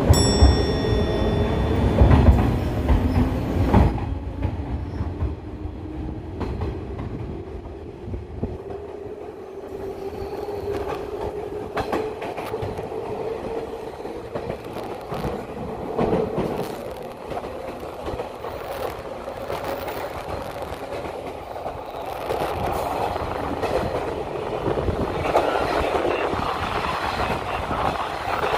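JNR 185 series electric train running, heard through an open window: wheels clattering over the rails and a rush of air, with the traction motor hum slowly rising in pitch during the first ten seconds as the train picks up speed.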